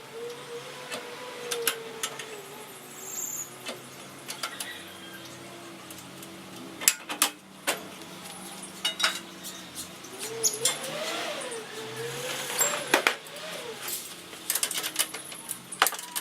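Wrenches and steel bolts clinking and clattering against metal as a golf cart's rear seat is unbolted: many sharp metallic clicks and knocks, with a faint wavering hum underneath.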